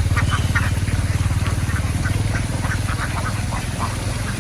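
A small engine running steadily at a fast, low pulse, with many short duck quacks over it.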